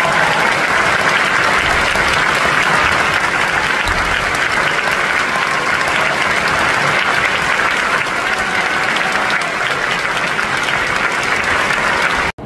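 Concert-hall audience applauding steadily: dense, sustained clapping from a large crowd, which cuts off abruptly near the end.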